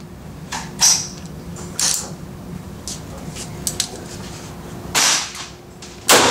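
Gunshots from a Colt M1917 revolver in .45 ACP: four sharp reports, one about a second in, one about two seconds in and two near the end, with fainter cracks between them.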